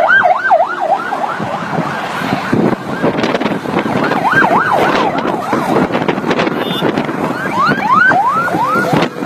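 Emergency-vehicle sirens yelping in quick rising-and-falling sweeps, about four a second, in three short bursts: at the start, around the middle and near the end. Between the bursts there is the loud rush of vehicles driving past.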